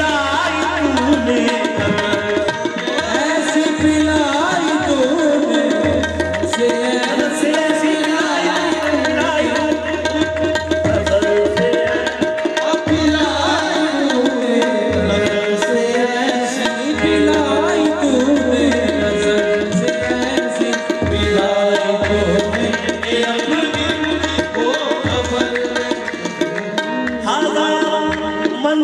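Qawwali music: harmoniums play winding melodic lines over a held drone, with tabla drumming throughout.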